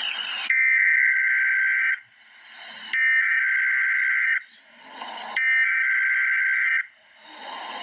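Emergency Alert System SAME header: three identical bursts of digital data tones, each about a second and a half long with a gap of about a second between them, over radio static. This is the coded header that opens a severe thunderstorm warning alert.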